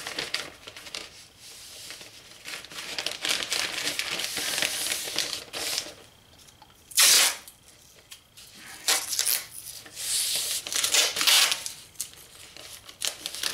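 Newspaper crinkling and rustling as it is bent and smoothed down, with masking tape pulled and torn off the roll in short rasps, the loudest about halfway through.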